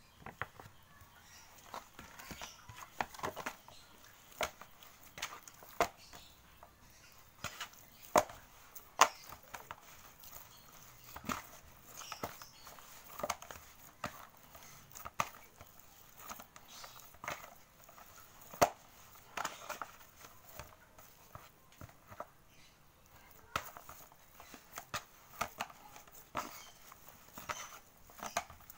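Hands kneading and pressing oiled martabak dough in a plastic bowl: irregular wet slaps and squishes, often one or two a second.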